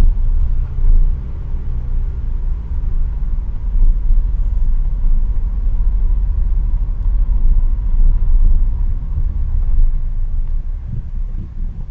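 Low, steady rumble of a car driving, with road and engine noise heard from inside the cabin.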